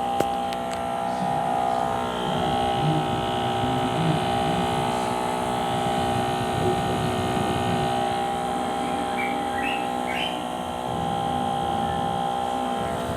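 Small electric fan motor of a homemade air conditioner running with a steady hum, several tones held at an even pitch throughout. A single click sounds right at the start.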